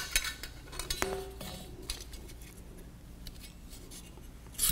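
Light metallic clinks and rattles of the thin metal frame pieces of an AprilAire 1413 filter upgrade kit being handled. Several clicks come near the start, one about a second in rings briefly, and a sharper click comes near the end.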